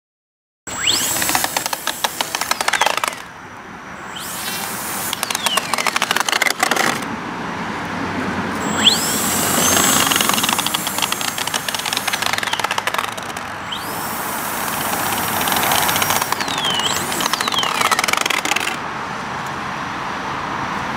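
Electric motor and propeller of a radio-controlled model biplane running up and down in several bursts during a taxi test, each burst with a whine that climbs in pitch as the throttle opens and falls as it closes.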